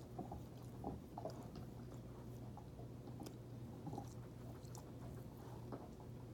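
A dog chewing quietly: faint, scattered small clicks and mouth noises.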